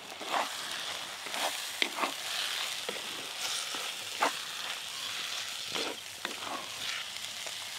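Onion-spice masala with chopped tomato sizzling steadily as it fries in a clay pot. A spatula scrapes and stirs through it, with about seven separate scrapes against the pot.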